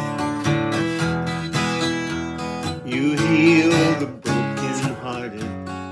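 Acoustic guitar strumming chords in the instrumental lead-in to a song, with a brief wavering melody line about three seconds in.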